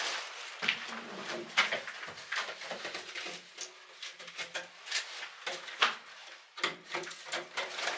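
Corrugated aluminium duct crinkling and rattling as it is handled and pushed into place, a string of irregular crackles and small knocks.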